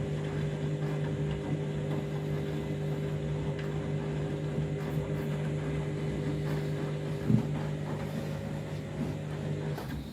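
Candy washing machine's motor and drum running with a steady hum, held back by a suds lock from too much foam. A single brief knock sounds about seven seconds in.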